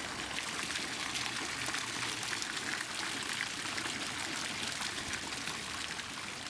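Running water, a steady trickling and splashing.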